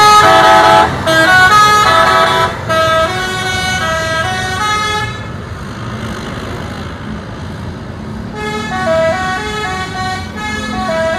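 Multi-tone 'telolet' musical air horn of an Indonesian intercity coach playing a quick melody of short stepped notes, with the bus's engine running underneath. The horn is loudest in the first five seconds, pauses for about three seconds, then plays its tune again near the end.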